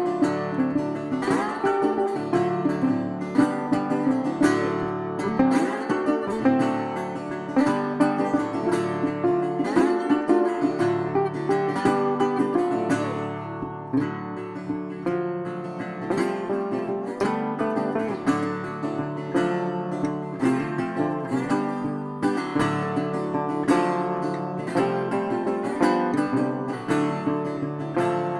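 Background music led by plucked acoustic guitar, with many quick picked notes.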